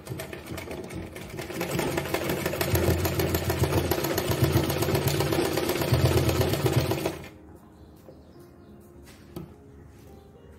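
Domestic sewing machine stitching lace onto fabric. It runs fast for about seven seconds, speeding up and getting louder about two seconds in, then stops abruptly.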